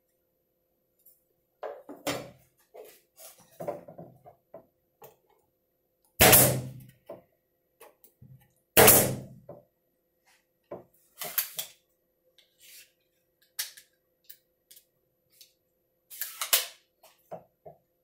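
Cut wooden bird-house pieces being handled, fitted and set down: a run of light wooden knocks and clicks, with two loud thumps about six and nine seconds in and a quick cluster of knocks near the end, over a faint steady hum.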